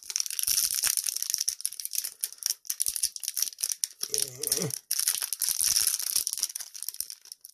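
Foil booster pack wrapper crinkling and tearing as a trading card pack is opened and the cards are handled: a dense run of sharp crackles, with a brief murmur about four seconds in.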